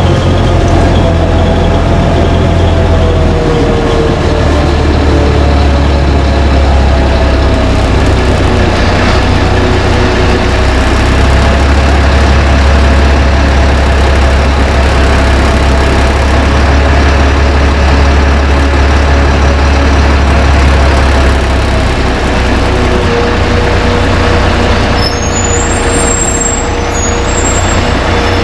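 LiAZ-5292.20 city bus heard from on board while driving: the diesel engine runs with a steady low rumble, and a drivetrain whine drifts slightly in pitch. A brief high-pitched squeal comes near the end.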